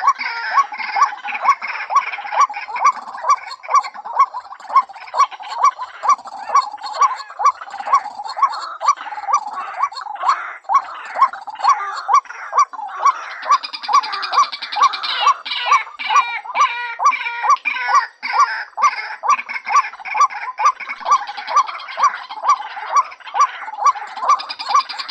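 Female white-breasted waterhen calling: a steady, loud run of repeated notes, about two a second, over a busier chatter of higher calls. This is the call used as a trapping lure.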